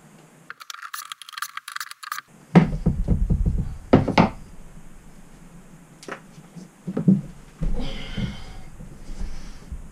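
Wooden blocks and hardware handled on a wooden tabletop: several sharp knocks and clunks, two of them close together, with rustling at the start and a short scratchy noise near the end.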